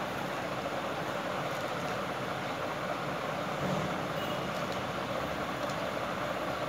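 Steady, even background noise that does not change.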